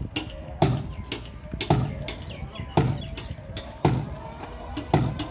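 Hammer blows on the underside of a wooden boat hull: five heavy knocks about a second apart, each with a short low ring.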